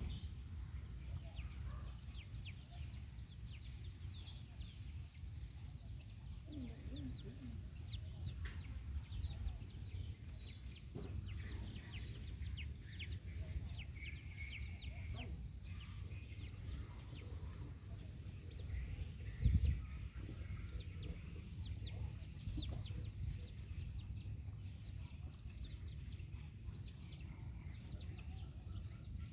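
Chicken family: chicks peeping in many short, high, falling chirps, with a few lower hen clucks, over a steady low rumble. One loud thump comes about two-thirds of the way through.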